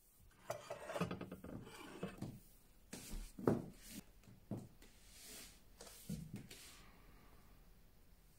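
A metal inkstand being handled on a wooden tabletop: a run of faint scrapes, rubs and light knocks as it is slid, turned round and set back down, the loudest about three and a half seconds in.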